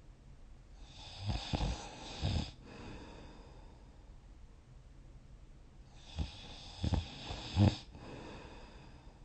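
A sleeping person snoring: two snores about five seconds apart. Each snore is a cluster of short, rough pulses, with faint breathing in between.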